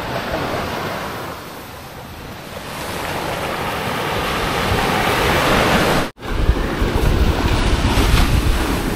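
Sea surf washing onto the beach, swelling to a peak about five seconds in, with wind buffeting the microphone. The sound cuts out for an instant about six seconds in, and the low wind rumble is heavier after it.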